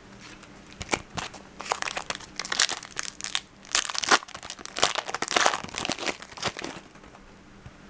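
Foil wrapper of a Topps Chrome trading-card pack crinkling and tearing as it is opened by hand, a run of irregular crackles that stops about seven seconds in.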